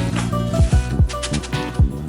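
Background music with a beat of deep, falling kick-drum hits and sharper percussion over sustained tones.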